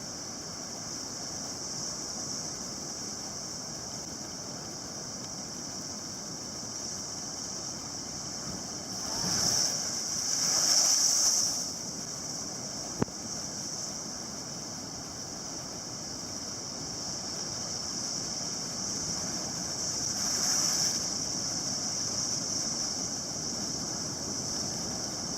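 Big ocean waves breaking against the shore: a continuous wash of surf that swells into louder crashes twice, about ten seconds in and again around twenty seconds in, with a single sharp click between them.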